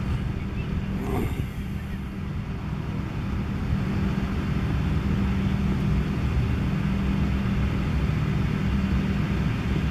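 Steady low rumble with a constant hum.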